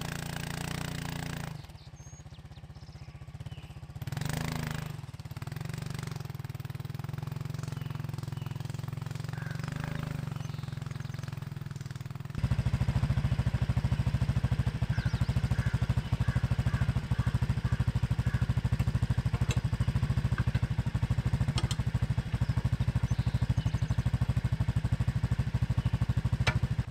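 ATV engine running as the machine drags a box-blade implement through packed sandy soil. About halfway through, the sound turns into a louder, fast, even pulsing that holds steady to the end.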